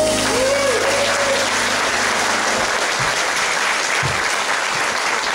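Audience applauding at the end of a song, with the band's last low note dying away a couple of seconds in.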